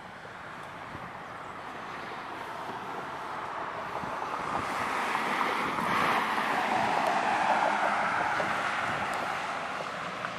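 A passing vehicle's tyre and road noise: a steady rushing that swells over several seconds to its loudest a little past the middle, then fades.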